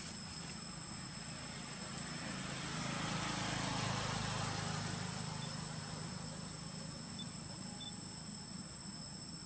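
Steady high-pitched drone of insects, with the sound of a distant engine passing that swells about three seconds in and fades away by about six seconds.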